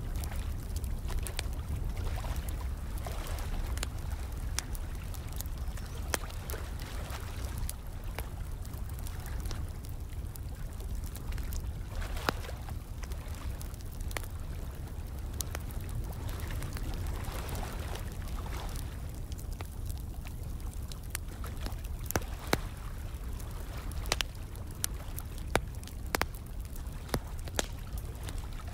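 Fire crackling with irregular sharp pops, a few louder ones in the second half, over a steady flow of running water.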